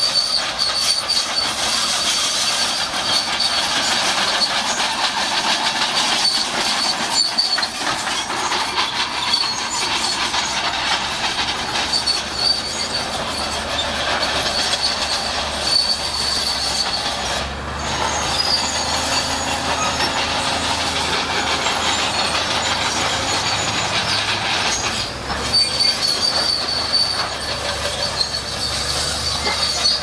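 Shantui SD16 crawler bulldozer working, its steel tracks clanking and squealing on and off over the diesel engine's steady running.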